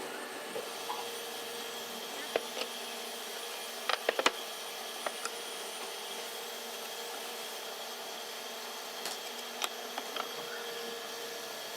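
Steady hum of a running workshop machine, with a few sharp knocks: three close together about four seconds in, and single ones before and after.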